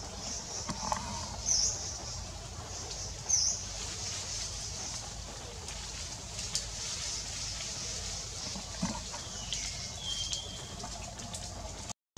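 Tropical forest ambience: a steady high hiss with two short, sharp high squeaks about two seconds apart and a few fainter calls later.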